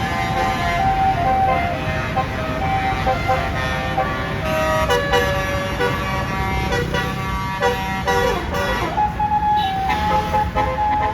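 Bus basuri telolet air horn playing a quick multi-note tune, the notes stepping up and down. Near the end a note slides up into a held tone. A steady low rumble runs underneath.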